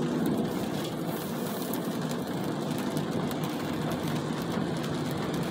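Steady running noise of a car heard from inside the cabin, engine and road noise with no distinct events.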